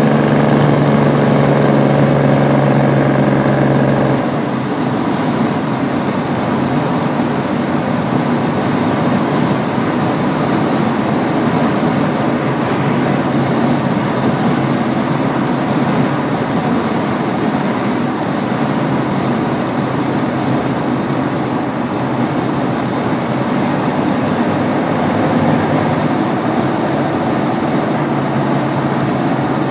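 Turbocharged Ford 7.3 IDI V8 diesel running while the vehicle drives, with a steady droning note. About four seconds in the note drops away, leaving a steady rush of engine and road noise.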